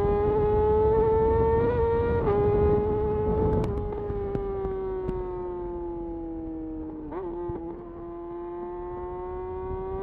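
Yamaha YZF R6 inline-four engine at high revs through a de-catted Akrapovic slip-on exhaust, pulling hard. The high-pitched note climbs briefly and drops a step at an upshift about two seconds in. It then holds and slowly eases off, with a short dip about seven seconds in.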